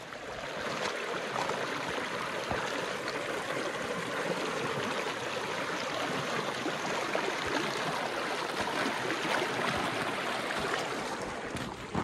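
A shallow, rocky stream running fast over stones and around a fallen log: a steady rush of water that eases off near the end.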